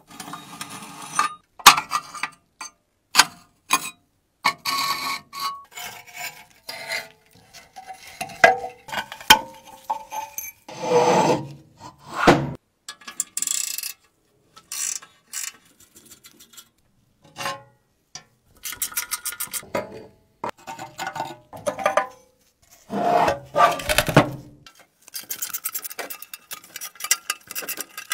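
Hand tools working on a rusty metal stove: short scrapes and rubbing, sharp metal clinks and knocks, and runs of rapid ratchet-wrench clicking as bolts are turned.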